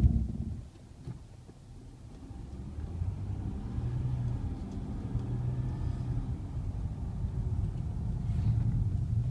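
Brakes of a 2010 Ford Fusion giving a low, steady groan as they are released, a noise the owner does not think is normal. A thump right at the start, then the groan builds from about three seconds in and holds.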